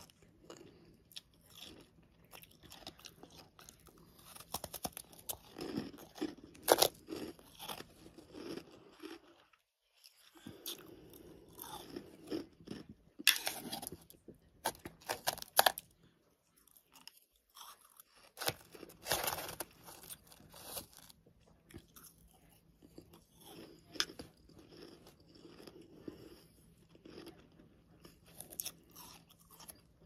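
Close-miked chewing and crunching of freezer and humidifier frost: crisp crunches coming in bursts, with two short pauses, about ten seconds in and again around seventeen seconds.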